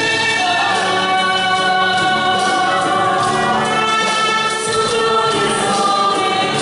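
Christian worship music with a choir singing, steady and full throughout.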